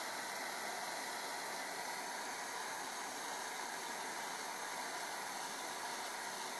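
Propane blow torch flame hissing steadily as it heats the can boiler of a homemade Hero's steam engine.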